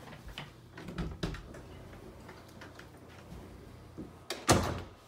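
Light footsteps and small knocks as someone walks off, then a single loud thud near the end as an interior door is pushed shut.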